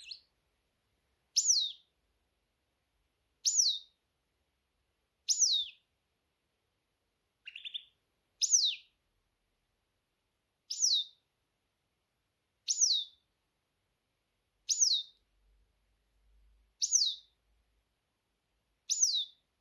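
A small songbird calling: a short, high note falling in pitch, repeated evenly about every two seconds, with one lower, rougher note about seven and a half seconds in.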